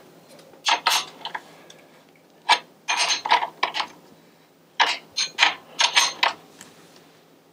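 Wrench tightening the axle nuts on an e-bike's rear hub motor: irregular groups of short metallic clicks and clanks with brief pauses between them.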